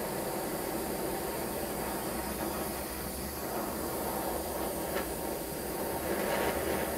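Hand-held gas torch burning with a steady hiss as its flame is run along a hardened steel punch to temper it to blue, with a faint tick about five seconds in.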